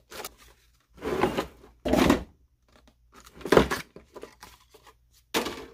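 Paper and cardboard packaging being handled and pulled out, in about five short rustles.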